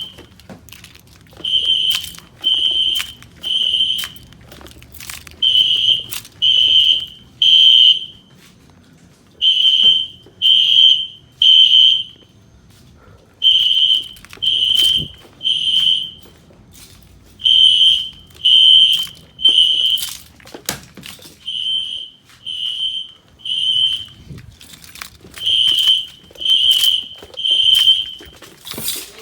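System Sensor SpectrAlert Classic fire alarm horns sounding the temporal-3 evacuation pattern. Each group is three loud, high-pitched blasts about a second apart, followed by a short pause, repeating.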